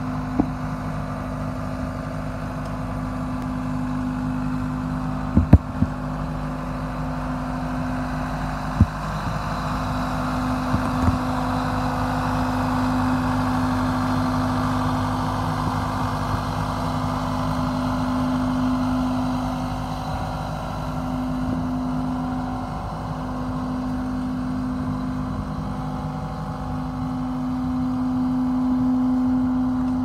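GEHL V330 skid steer's diesel engine running at a steady speed. A few sharp clicks come in the first third.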